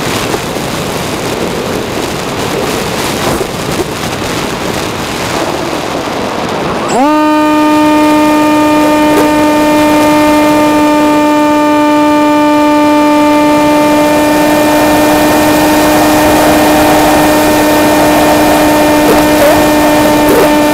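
Swift II RC flying wing's motor and propeller, heard from a camera on the wing. At first there is only wind rushing over the microphone as the wing glides. About seven seconds in, the motor spins up quickly to a steady, high-pitched hum that holds, with the wind rush beneath it.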